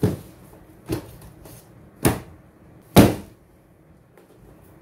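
Stacks of books being taken off a cabinet shelf and set down on a desktop: four dull thumps about a second apart, the loudest about three seconds in.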